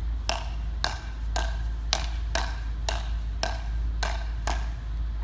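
Smash Ball paddles hitting a ball back and forth in a steady volley: a crisp pop about twice a second, nine hits in all.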